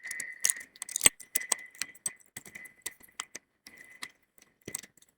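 Irregular small clicks and taps of metal hand tools working on a smartphone's parts, several a second, over a faint steady high-pitched whine.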